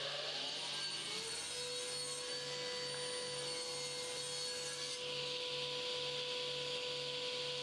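Table saw running, its spinning blade ripping a narrow wooden strip fed along the fence with a push stick, with a steady whine under the cutting hiss.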